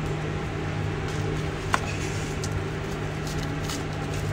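A steady low mechanical hum, with faint crinkles of bubble wrap being handled and one sharp click a little under two seconds in.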